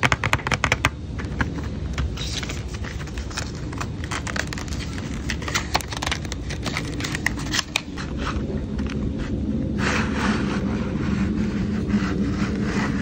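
Cardboard pencil box being opened by hand: the end flap worked open and the tray of colored pencils slid out, a string of clicks, taps and paperboard scrapes over a steady low rumble.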